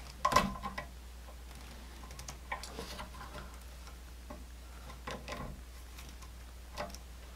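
Needle-nose pliers bending a wire around a receptacle's screw terminal: scattered small clicks and ticks of the steel jaws on the wire and terminal, the sharpest about a third of a second in.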